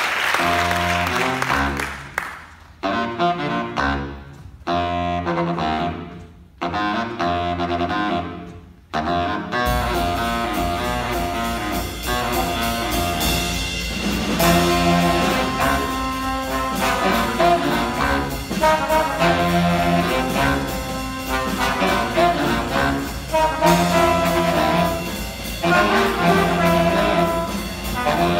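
A student jazz big band playing. It opens with sparse short phrases separated by pauses. About ten seconds in the drums and the full horn section of saxophones, trombones and trumpets come in and play on continuously.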